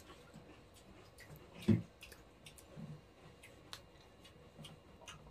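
Quiet eating sounds: fingers mixing rice and mutton curry on plates, with small wet clicks and chewing. A single louder short thud comes about a second and a half in.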